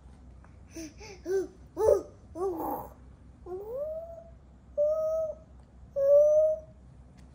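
Baby babbling: a few short, quick syllables, then three longer drawn-out calls, the first sliding up in pitch.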